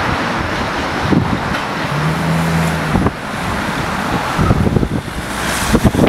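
Road traffic running steadily along a seafront road, with a brief low hum about two seconds in. Wind buffets the microphone near the end.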